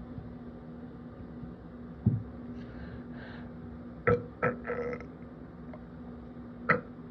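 A person burping several times from carbonated water: one short low burp about two seconds in, then a quick cluster of short burps around four to five seconds in, and one more near the end.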